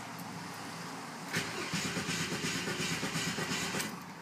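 Ford XF Falcon ute's 4.1-litre six-cylinder being cranked by the starter motor on a cold start, a rapid pulsing churn that starts suddenly about a second in and stops after about two and a half seconds. The Weber downdraft carburettor's automatic choke is disconnected, so the engine is hard to start cold. Heard from inside the cab.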